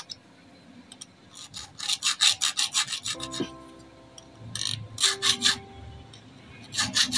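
Small metal hand file rasping quickly back and forth across the flattened teeth of an overlock machine's feed dog, sharpening them. The strokes come in short fast runs with pauses between.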